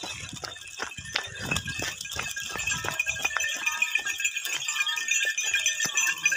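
A big herd of goats on the move: many small bells jingling, hooves clicking on the road, and a few short bleats. The jingling grows denser and louder after about three seconds.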